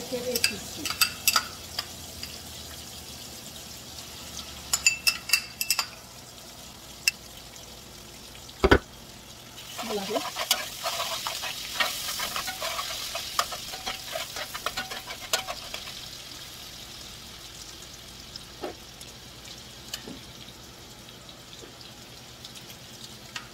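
Smoked herring and spice blend frying in hot oil in a steel pot, sizzling steadily, with two short runs of spoon clinks in the first six seconds and a single hard knock about nine seconds in. It then sizzles louder for several seconds as the pot is stirred with a spoon, before settling back down.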